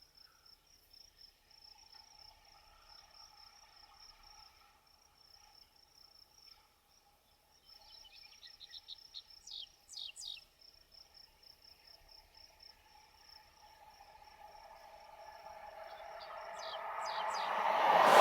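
Crickets trilling steadily in a high, pulsing tone, with a few brief bird chirps about halfway through and again near the end. Toward the end a broad whoosh swells up to a loud peak, as something rushes past.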